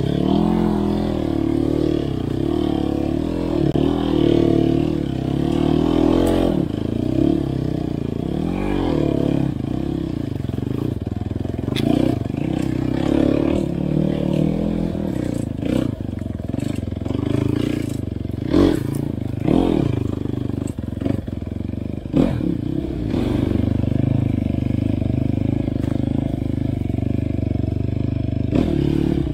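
Off-road dirt bike engine being ridden, its revs rising and falling continuously, with several sharp knocks and clatters, most of them in the second half.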